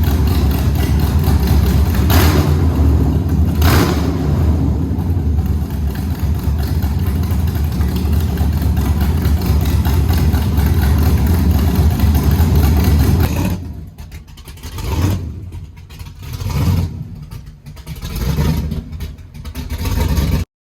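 LS3 V8 engine in a Holden VX Commodore running with a deep, steady throb, with two short louder bursts a few seconds in. The engine sound stops suddenly about two-thirds of the way through, and softer, uneven sounds follow.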